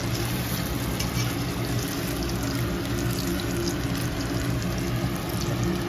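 Dal vadas (lentil fritters) sizzling steadily as they deep-fry in hot oil in an iron kadhai, with light scrapes of a slotted spoon. A steady low hum runs underneath.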